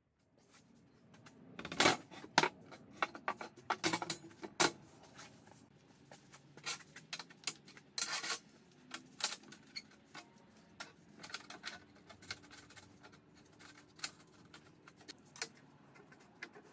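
Steel tube pieces and welding magnets set down and shifted on a perforated steel welding table: irregular metallic clanks and clicks, loudest and densest in the first half.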